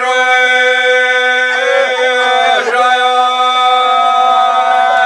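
A group of men singing a traditional Bosnian folk song together, unaccompanied, in long drawn-out notes: one part holds a steady low note beneath the slowly moving melody.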